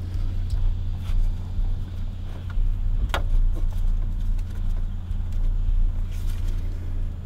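A low steady rumble, with a few sharp clicks and knocks from the tool and serpentine belt as the belt is levered onto the tensioner pulley of a BMW N52 engine.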